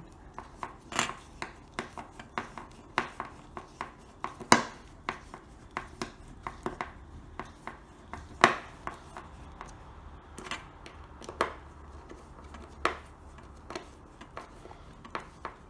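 Screws being turned in by hand with a screwdriver, fixing a smoke alarm base into wall plugs in a ceiling: irregular small clicks and scraping, with two sharper knocks about four and a half and eight and a half seconds in.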